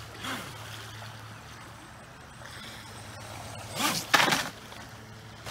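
Radio-controlled jet boat (Pro Boat 23-inch River Jet Boat) coming in to the creek bank: a low water wash, then about four seconds in a loud splashing rush as its jet spray hits the shore and the hull runs aground on the gravel.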